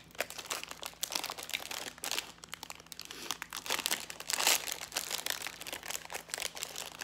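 Plastic snack-cake wrapper crinkling and crackling as it is handled and opened by hand, in irregular bursts, one of the loudest about four and a half seconds in.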